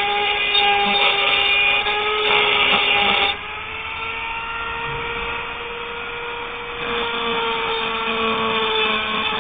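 High-speed rotary tool grinding down metal, a steady high motor whine over a rough grinding noise. A little over three seconds in the grinding eases off and the whine rises slightly as the tool runs lighter. Around seven seconds in it bears down again and the pitch sags under load.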